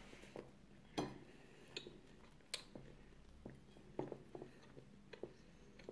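Someone chewing crunchy toasted bread with the mouth close by, giving a few faint, scattered crunches and mouth clicks.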